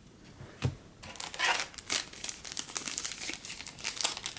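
Foil trading-card pack wrapper crinkling and crackling in the hands, starting about a second in after a single light tap.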